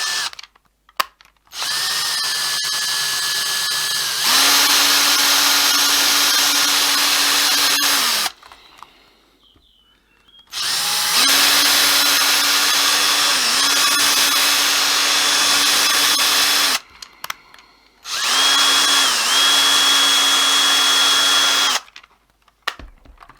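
Small electric drill with a 2 mm bit drilling out the rivet of an old Hornby tension-lock coupling. It runs in four bursts of a few seconds each, with short pauses between. The whine steps up in pitch partway through the second burst, and the pitch dips briefly twice as the bit bites into the rivet.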